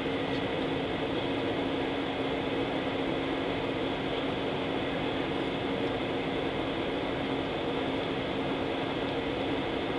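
Steady cabin noise of a jet airliner taxiing, heard from inside the cabin: an even rushing sound with two steady low hum tones.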